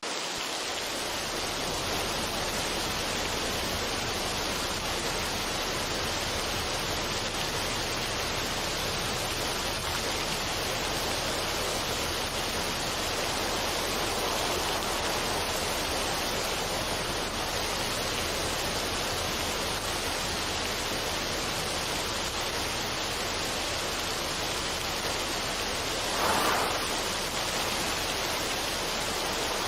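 Steady, even rushing noise like falling water, with no melody or beat, and a brief swell near the end.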